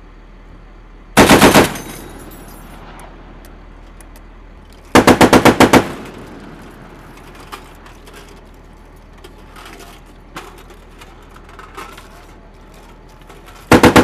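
.50-caliber M2 heavy machine gun firing three short bursts of rapid shots, about eight rounds a second. One burst comes about a second in, a longer one about five seconds in, and a third starts right at the end.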